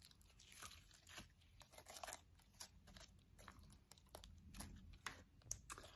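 Faint, irregular clicking and crackling of thick white Elmer's glue slime as it is squeezed and stretched in the hands.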